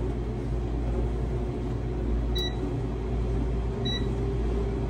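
Gourmia air fryer running with a steady fan hum. Its control panel gives two short, high beeps, about two and a half and four seconds in, as its buttons are pressed to set the turn reminder.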